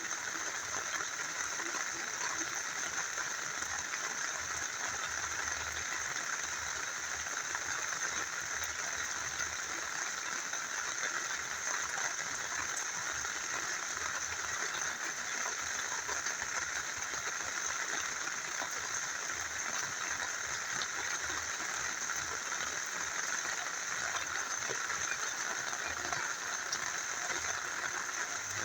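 Steady rain together with a small river flowing: an even, unbroken hiss of water.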